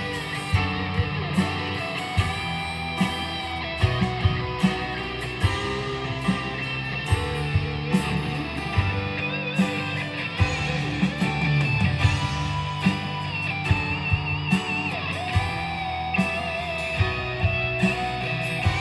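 Live rock band playing an instrumental break: a guitar melody over strummed guitar, bass and a steady drum beat, with no vocals.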